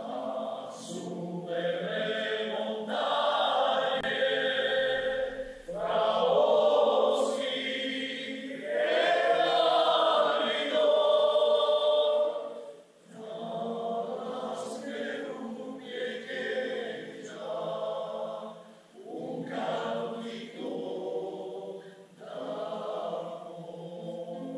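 Choir singing in sustained phrases, swelling loudest in the middle and pausing briefly twice between phrases.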